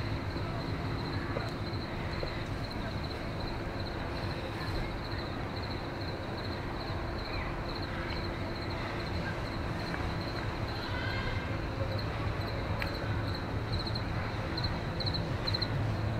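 Crickets chirping in quick, even pulses over a steady low hum, in a street ambience at night; the hum grows louder near the end.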